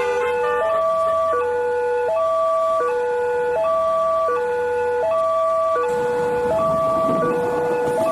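Railway level-crossing warning siren sounding a steady two-tone alarm, a higher and a lower tone alternating about every three-quarters of a second. About six seconds in, a low rumbling noise comes in under it.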